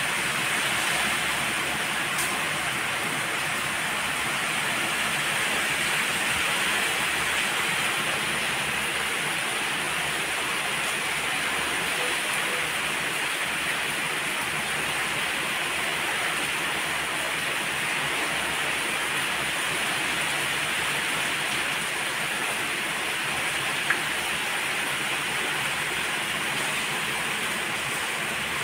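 Heavy rain falling steadily, an even hiss with no break, on palm fronds and trees. A single brief click stands out near the end.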